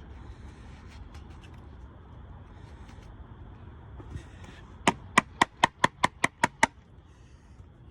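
A quick run of about nine sharp, ringing metal taps, roughly five a second, during work on a chainsaw's bar and chain.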